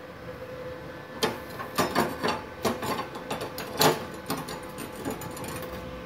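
MultiPro MMA 120 inverter stick welder switched on and humming steadily, with a string of irregular sharp clicks and knocks from about a second in to near the end.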